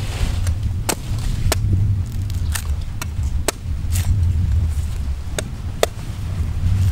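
Large knife chopping into the husk of a young green coconut: about eight sharp strikes at uneven intervals, over a steady low rumble.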